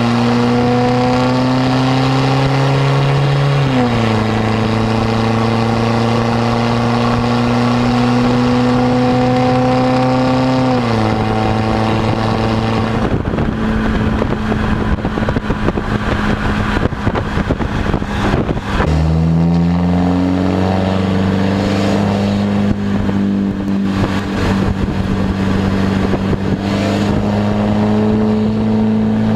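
Straight-piped Volkswagen Golf Mk6 GTD's four-cylinder diesel accelerating through the gears, its drone rising in pitch with quick drops at upshifts about four and eleven seconds in. From about thirteen seconds the engine note gives way to a rushing noise, then it comes back about nineteen seconds in and holds a steady drone, rising slowly.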